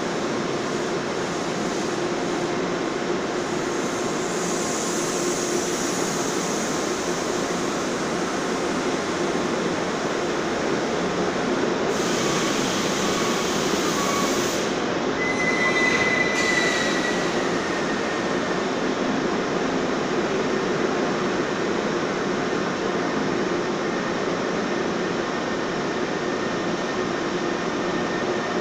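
NJ Transit commuter train cars rolling past along a covered station platform: a steady rumble of wheels on rails, with a brief high wheel squeal a little past halfway.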